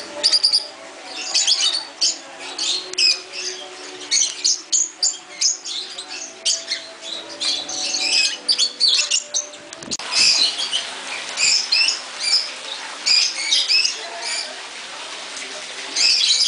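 A flock of small parrots, lovebirds among them, chattering: many rapid, overlapping high-pitched chirps and squawks with hardly a break.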